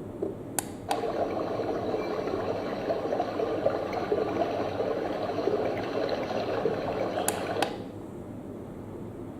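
An essential oil diffuser's built-in speaker playing one of its water nature sounds, a crackly running-water track that starts about a second in. It is switched with clicks of the diffuser's buttons: two just before the sound starts and two near the end, where it cuts off suddenly.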